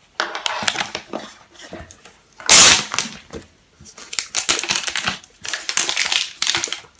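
Plastic wrapping crinkling and rustling in repeated bursts as a power cable and its packaging are handled. The loudest crackle comes about two and a half seconds in and lasts about half a second.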